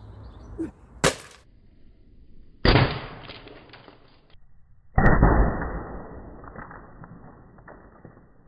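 3D-printed 40 mm airsoft grenade launcher shell firing on green gas: a sharp crack about a second in, then two louder blasts of rushing gas. The last blast fades away slowly over a few seconds.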